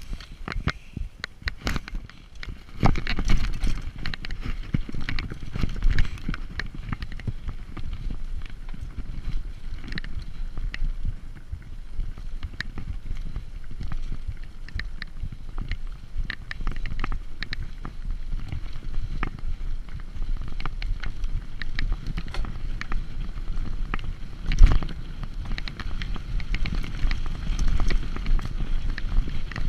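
Mountain bike ridden along a dirt forest trail, heard from a camera on the bike: wind buffeting the microphone and tyre rumble, with constant rattling clicks from the bike over bumps. It gets louder about three seconds in as the pace picks up, and one hard knock comes about five seconds before the end.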